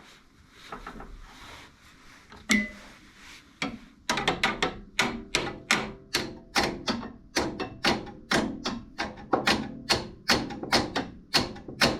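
Hammer tapping on metal skid-steer drive parts. One sharp ringing strike comes early, then from about four seconds in a steady run of taps, roughly three a second.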